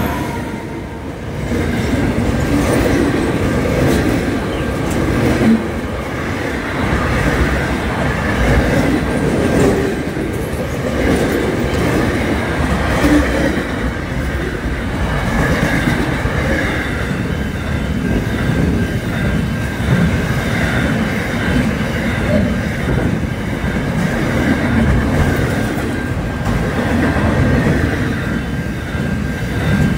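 SCT freight train's wagons rolling past close by: a loud, steady rumble of steel wheels on rail with clickety-clack over the joints.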